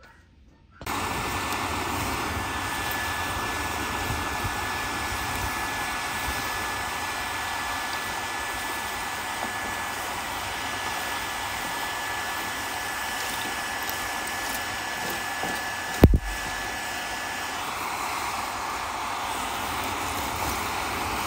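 Hair dryer switched on about a second in and running steadily with a faint high whine, blowing air into a grill full of charcoal to get it lit. One sharp knock comes late on.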